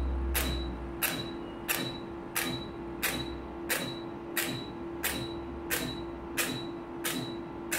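Laser hair-removal machine firing pulse after pulse. Each shot is a sharp click with a short high beep, about one every two-thirds of a second, over the machine's steady low hum.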